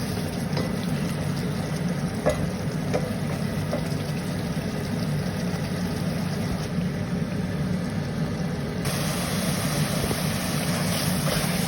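Chicken and spinach cooking in a pan: a steady sizzling hiss over a low steady hum, the hiss growing brighter about nine seconds in.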